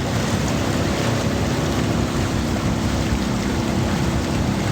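Outboard motor of a river bamboo raft running at a steady pitch, with rushing water and wind noise on the microphone.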